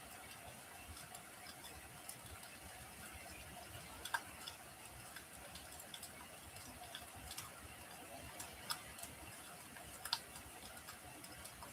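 Wood fire crackling in a fireplace: scattered sharp pops and snaps over a faint steady hiss, with the loudest pops about four seconds in and again about ten seconds in.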